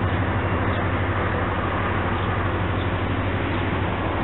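Steady rumble of an unseen diesel locomotive engine, with a constant low hum under an even wash of noise.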